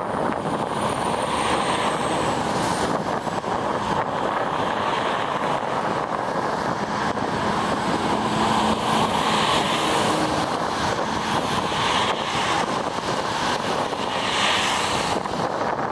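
Distant ShinMaywa US-2 flying boat in flight, its four Rolls-Royce AE2100J turboprops giving a steady drone.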